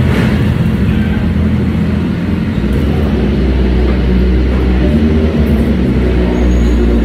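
Engines running at a steady low rumble inside a ferry's enclosed car deck.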